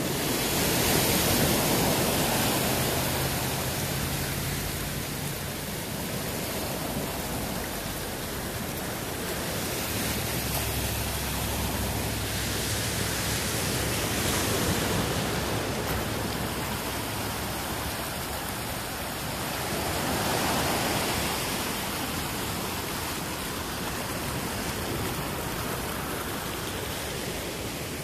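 Ocean surf breaking and washing up a sandy beach: a steady rushing noise that swells a few times as waves come in.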